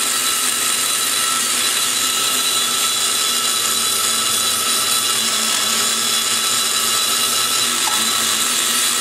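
High-speed porting grinder with a carbide burr running steadily while cutting inside the exhaust port of a KMJ 345cc big-block Chevy aluminum cylinder head. It makes a steady high whine as the burr grinds the port wall.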